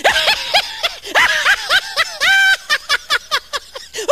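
High-pitched, rapid laughter in short repeated bursts, with one drawn-out note about two seconds in.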